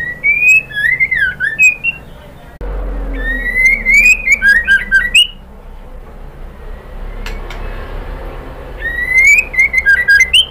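White-rumped shama (murai batu) singing in three bursts of rising whistled notes laced with sharp clicking notes, with a pause of a few seconds before the last burst near the end. This is the female's call, used to lure a male shama into song.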